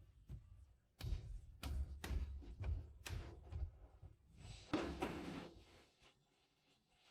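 A series of faint knocks and taps with low thuds, several a second over a few seconds, stopping a little more than a second before the end.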